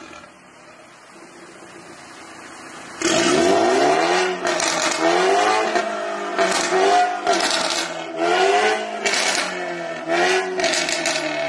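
2019 BMW G20 330i's turbocharged 2.0-litre four-cylinder running through an Armytrix valve-controlled exhaust. It idles quietly, then about three seconds in it revs suddenly and loudly, followed by a string of quick blips that each rise and fall in pitch. Near the end it settles back toward idle.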